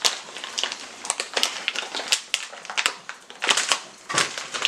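Packaging crinkling and crackling in the hands as a pack of dog treats is worked open, in quick irregular crackles that grow loudest near the end.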